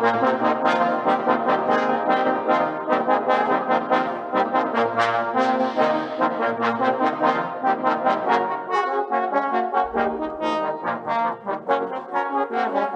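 Instrumental music led by brass, with a quick, steady run of short notes.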